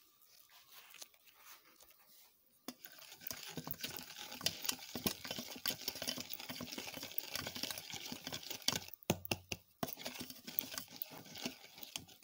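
Hand whisk beating eggs, sugar and cornstarch in a bowl for pastry cream: fast, dense clicking and scraping that starts a few seconds in and breaks off briefly near the end.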